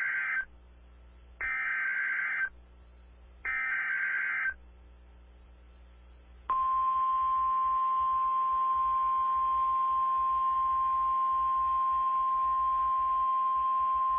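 Emergency Alert System (SAME) digital header: three harsh data bursts, each about a second long with a second's gap, the first already under way at the start. About six and a half seconds in, the NOAA Weather Radio 1050 Hz warning alarm tone begins, one steady high tone that signals a new warning message is coming.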